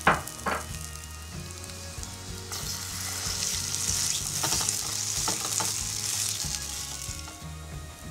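Rice-flour and corn fritter batter sizzling in oil on a hot nonstick pan. The sizzle swells for a few seconds in the middle, with short crackles, as fresh dough is pressed by hand onto the pan. Two sharp clicks come right at the start.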